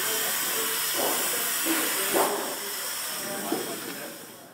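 A steady hiss that fades away near the end, with faint scattered sounds under it.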